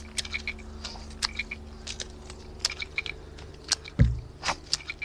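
Small neck knife carving a piece of fresh wood: a run of short scraping cuts and clicks, with one heavier thump about four seconds in.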